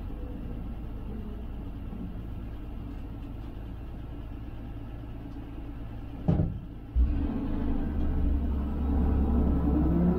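Slant-six engine of a Dodge A100 cab-over truck heard from inside the cab, running steadily at low revs. A single clunk comes about six seconds in, then the engine takes on load and louder, with its pitch rising near the end as the truck pulls away.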